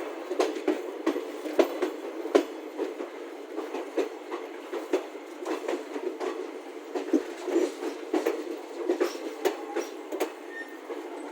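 Train wheels clattering over rail joints as the train arrives at a station: an uneven run of sharp clicks and knocks over a steady rumble.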